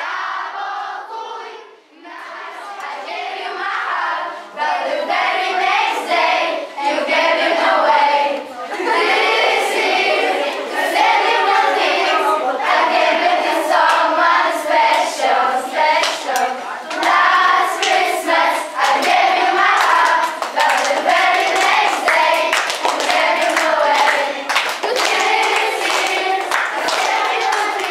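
A roomful of children singing together, with hands clapping along.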